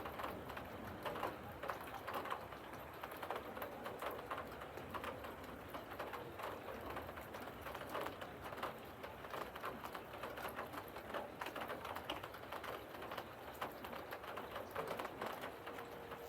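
Thunderstorm rain pattering lightly: irregular ticks of raindrops dripping onto a hard surface, over a faint steady hiss.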